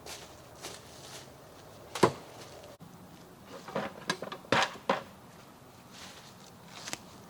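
Knocks and clunks of wood being handled: one sharp knock about two seconds in, then a quick run of knocks between about four and five seconds in.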